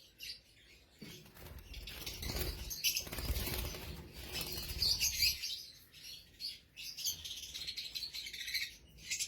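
African lovebirds chirping in quick high bursts, with wings flapping from about a second in until past five seconds.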